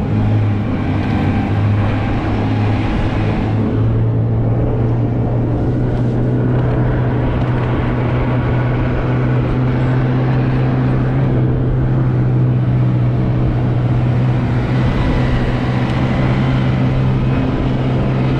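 Snowmobile engine running steadily at travelling speed, with a constant drone and a small rise in pitch about three seconds in.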